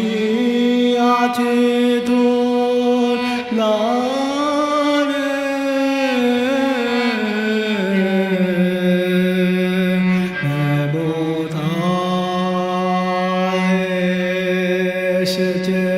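Cello bowed in long held low notes, sliding up to a higher note a few seconds in and back down later, with a brief dip to a lower note past the middle before returning.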